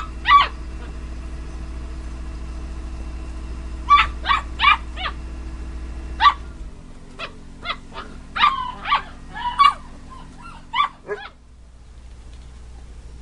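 Basset hound puppies yapping and yelping as they play: short high-pitched barks, two rising ones at the start, then a string of them from about four seconds in that ends around eleven seconds.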